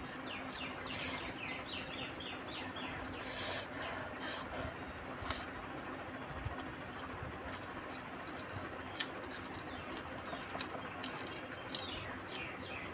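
Close-up hand-eating sounds: fingers mixing rice against a steel plate, chewing and lip smacks, heard as scattered clicks and a couple of short breathy hisses over a steady low hum. A quick run of bird-like chirps comes about a second in and again near the end.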